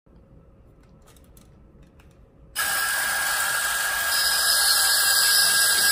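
Motors and gearing of battery-operated Godzilla and Baragon monster toys running with a steady mechanical whir, switching on abruptly about two and a half seconds in after a few faint clicks.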